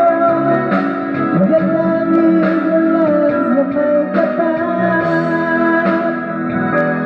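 Ballad music with a held, bending lead melody over steady chords, with guitar among the instruments.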